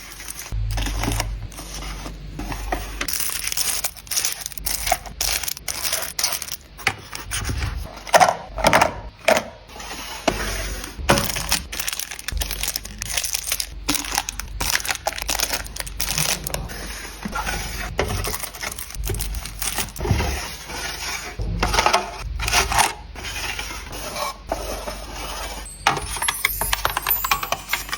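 Small nail-tool items being handled and dropped into storage containers: a steady run of irregular clicks, taps and clattering knocks of small hard objects.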